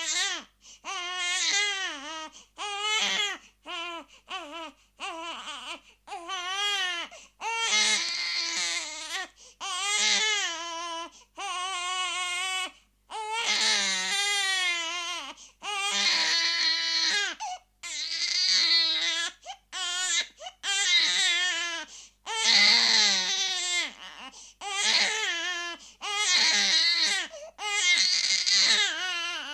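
A baby crying: a continuous run of high-pitched cries, each half a second to a second and a half long, with a wavering pitch and short breath gaps between them.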